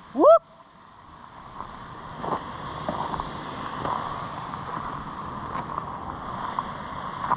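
A person's short rising whoop call, sweeping quickly upward in pitch about a third of a second in. It is followed by a steady rushing noise.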